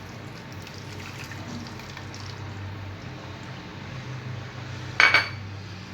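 Homemade lemon-and-clove syrup being poured into a sterilised bottle: a faint trickle of liquid with light clinks of kitchenware, and one sharp, ringing clink about five seconds in. A low steady hum runs underneath.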